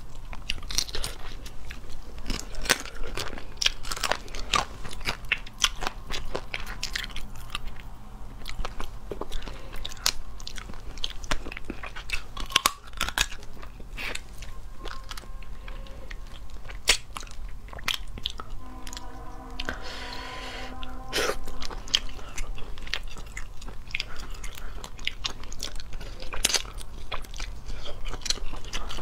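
Close-miked crunching, cracking and chewing as cooked shell-on lobster is peeled by hand and bitten: a dense run of sharp crackles and clicks from breaking shell and chewing. A short pitched tone sounds briefly about two-thirds of the way through.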